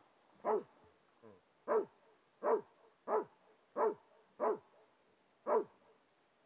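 Border collie mix barking, about seven barks in five seconds, each dropping in pitch, with a fainter one between the first two.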